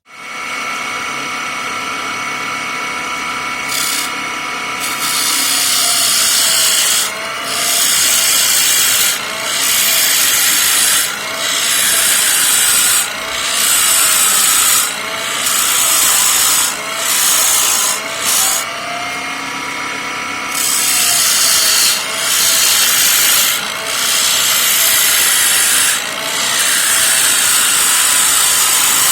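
Homemade wood lathe running with a steady motor hum while a hand-held turning chisel cuts into a spinning oak blank. From about six seconds in, the cuts come as regular rasping passes, each about a second and a half long, roughly every two seconds.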